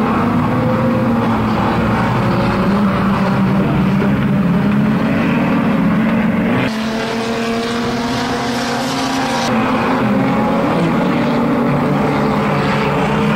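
Engines of a pack of old pre-1975 banger-racing saloon cars running together as they race round a shale oval, a steady drone that changes abruptly about halfway through.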